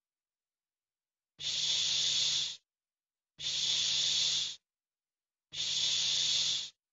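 A voice saying the English 'sh' sound, the voiceless postalveolar fricative /ʃ/, three times. Each is a steady hiss of a little over a second with no voicing, about two seconds apart.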